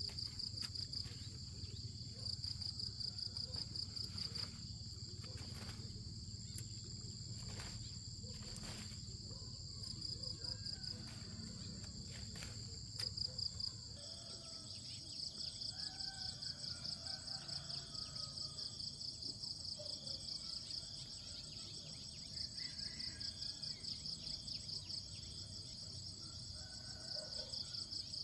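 Insects chirping in a steady, rapidly pulsing high-pitched chorus, with a few light clicks in the first half and faint bird calls in the second half.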